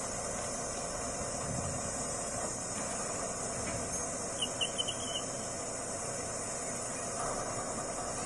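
Steady hiss with a low rumble, the even running noise of a standing diesel-electric locomotive. About halfway through comes a quick run of four short high chirps.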